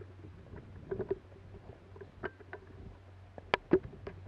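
Footsteps and rustling through leafy undergrowth scattered with dead twigs, a string of irregular crunches and snaps, with two sharper cracks close together about three and a half seconds in.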